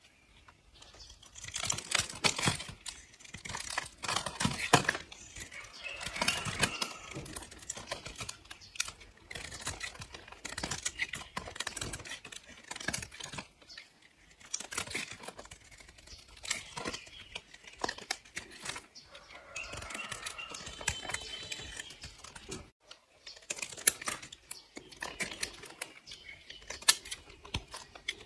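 Knife slicing through bars of soap: crisp, crunchy crackling as the blade cuts, in repeated strokes with short pauses between them.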